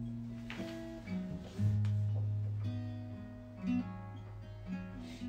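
Instrumental music: a guitar picking notes over a bass guitar holding long low notes.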